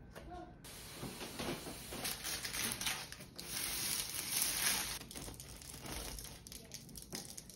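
Parchment paper crinkling and rustling as crusty seeded bagels are moved on it. Near the end, a serrated bread knife rasps through a crusty bagel in short strokes.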